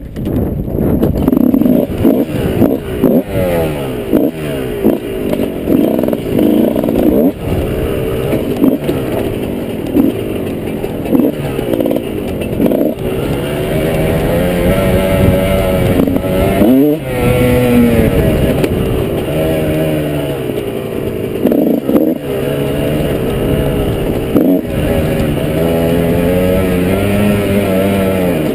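Dirt bike engine revving up and down under load while riding off-road, its pitch repeatedly climbing and dropping with throttle and gear changes, with a sharp throttle chop and pickup about two-thirds of the way through.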